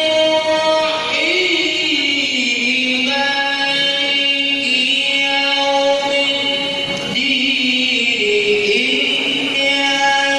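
A qari chanting Quran recitation in a melodic style, holding long, ornamented notes that slide from pitch to pitch.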